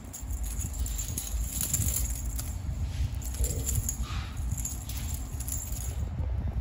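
Light scattered clicks and rattling from a kitten batting a toy about on a tile floor, over low rumbling handling noise.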